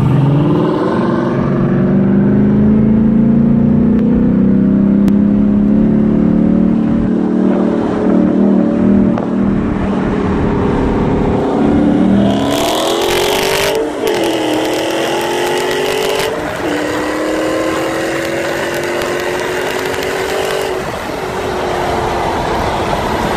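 Supercharged V8 engines of a Ford Mustang GT and a Dodge Challenger Hellcat running hard side by side in a roll race, heard from inside the Mustang. The engine note climbs, drops with a gear change about twelve to fourteen seconds in, climbs again, and eases off near the end.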